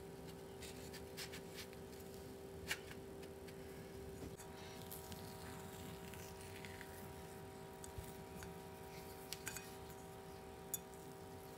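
Faint scattered clicks and scrapes of a metal ice-cream scoop working sticky cookie dough and knocking against a ceramic bowl and a baking tray, over a steady low hum. The sharpest click comes a few seconds in.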